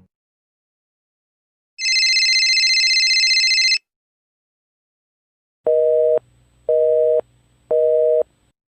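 A steady high electronic tone held for about two seconds, then a telephone busy signal: three short beeps of two low tones sounded together, about a second apart.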